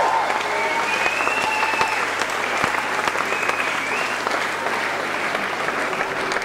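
Concert audience applauding at the end of a song, the clapping easing off slightly near the end.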